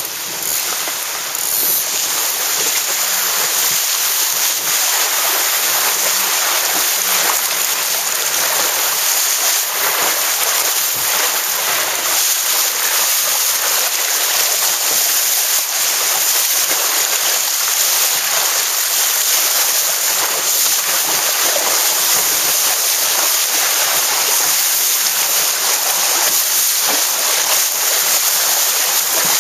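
Water rushing and spraying along the hull of a Laser SB3 sportboat planing downwind, a loud steady hiss mixed with wind buffeting the microphone. It swells to full strength about a second and a half in.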